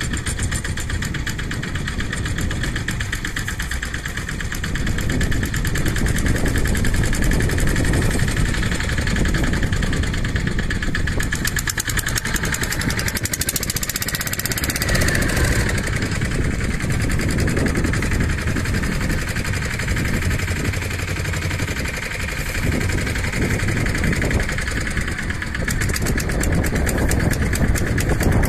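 A boat's engine running steadily at low speed, with an even pulsing.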